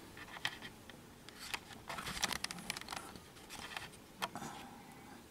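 Faint, scattered clicks of a computer mouse being used to open the controller settings, with a few quick clicks bunched together about two seconds in.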